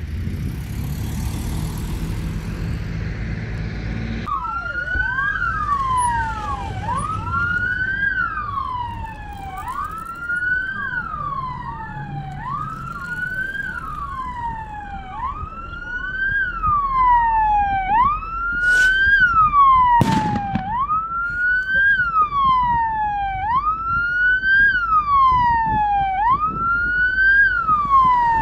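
Vehicle siren wailing: starting about four seconds in, it sweeps up quickly and falls back about every two seconds. Two sharp bangs cut through it about two-thirds of the way in.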